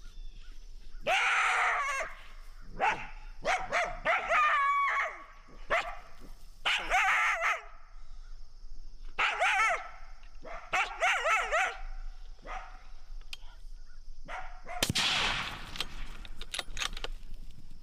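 Coyotes barking and yipping in about six short, pitched, wavering bouts. About fifteen seconds in comes a sudden loud burst of noise that dies away over a second or so.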